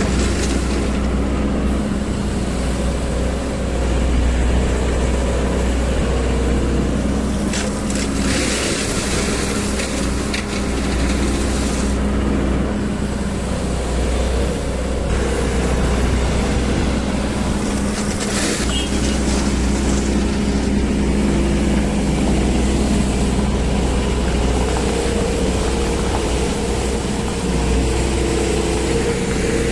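Sany SY215C hydraulic excavator's diesel engine running steadily while the machine works, with a few brief rushing, hissing noises over it.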